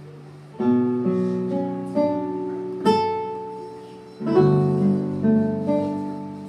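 Yamaha MX88 synthesizer playing a plucked, guitar-like voice: chords struck with a rolled, strummed attack about half a second in and again about four seconds in, with single notes and short chords between, each ringing and fading.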